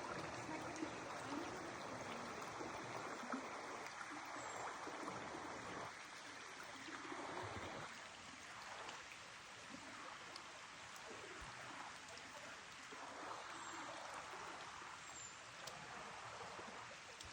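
River water flowing: a steady rush of water that swells and eases.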